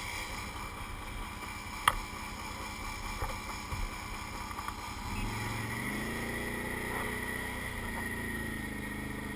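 Off-road engines idling, then the Can-Am ATV's engine revs up and pulls away about five seconds in, its pitch rising and falling with the throttle. A single sharp knock about two seconds in.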